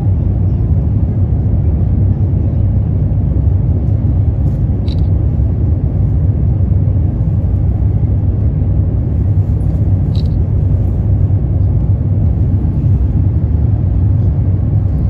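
Steady low rumble of an Airbus A350-900 cabin in the climb, its Rolls-Royce Trent XWB engines and the rushing air heard through the fuselage. Two brief high ticks come about five seconds apart.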